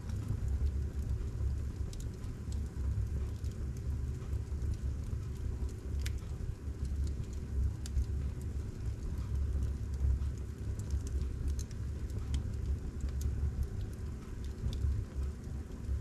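Fire burning in a fireplace: a steady low rumble of the flames with scattered small crackles and ticks, a sharper one about six seconds in.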